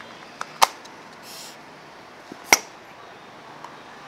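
Sharp plastic clicks from a toy clay popper and its clear plastic mould handled by hand: two loud clicks about two seconds apart, a small click just before the first, and a brief soft rustle between them.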